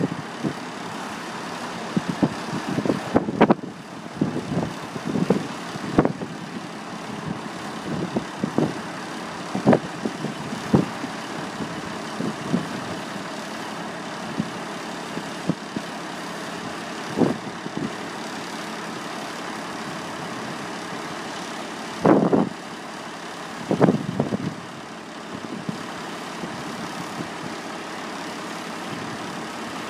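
Diesel semi tractor engine running steadily while the end dump trailer's hydraulic hoist lifts the steel box. Short knocks come and go through it, loudest about 22 and 24 seconds in.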